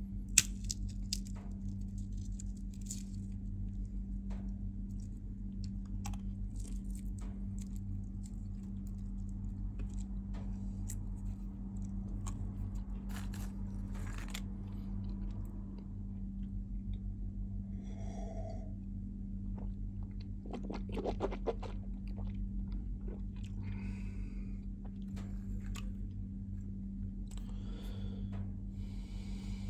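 Peanut shells being cracked open by hand and the nuts chewed: scattered sharp cracks and short crunchy patches, over a steady low hum.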